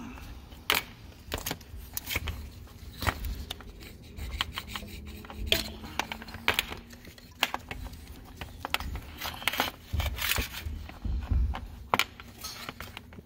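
Scattered clicks, clinks and knocks as port injectors and their metal retaining clips are worked off a fuel rail on a steel workbench.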